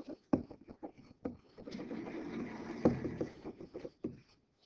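Stylus writing by hand on a tablet or interactive board: light taps and scratches as the letters go down. A longer stretch of rustling noise comes about halfway through, with one sharp knock in it.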